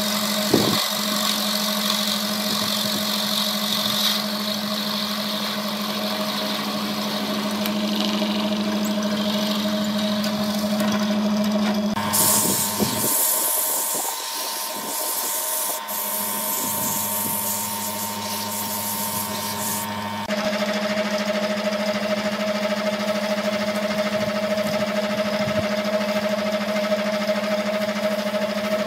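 Wood lathe running with a steady motor hum, first while a turning tool scrapes inside the spinning vase's neck, then through a middle stretch where sandpaper hisses against the spinning wood. The hum changes abruptly twice as the shots change.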